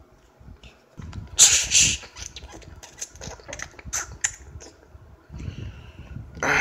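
Plastic and rubber toys handled and pressed together, with rustling, rumbling handling noise and many short clicks, and a loud hissing burst about a second and a half in.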